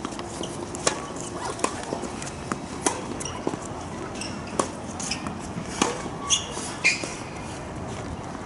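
Tennis balls struck by rackets and bouncing on an outdoor hard court during warm-up hitting: sharp, irregular pops about every second or so.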